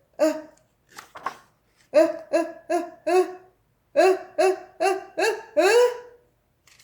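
A child's voice acting out crying: short rising sobs in two quick runs, the last sob drawn out.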